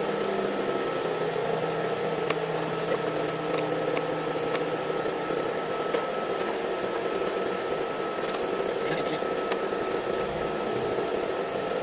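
Steady machine hum with a thin, high, constant whine running through it. Over it come scattered light clicks and taps of hand work on a car's front end around the radiator.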